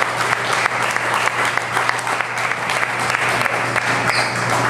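Congregation clapping and applauding in praise, a steady dense patter of many hands.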